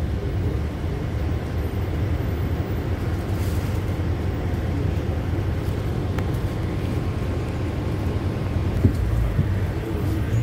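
Steady low rumble of a bus in motion, heard from inside the passenger cabin: engine and road noise.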